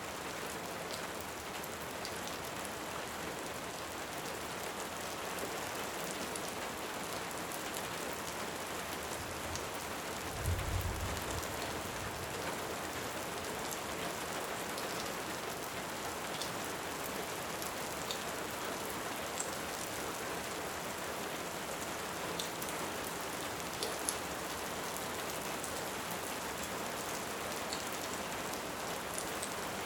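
Steady rain with scattered faint crackles from a fireplace. A little past a third of the way in comes one brief low rumble of distant thunder.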